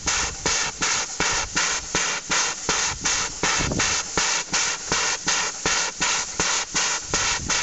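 SY-class steam locomotive beating out steady, rhythmic steam exhaust puffs, about three a second, with a hiss of steam between them.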